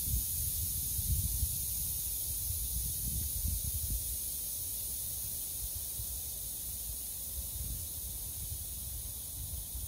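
Air hissing steadily out of a car tyre's valve stem as a tool holds the valve pin down, deflating the tyre. Gusts of wind rumble on the microphone underneath.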